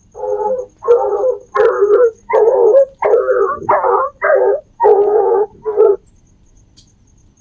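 A dog barking, about nine barks in quick succession over the first six seconds, over faint steady cricket chirping.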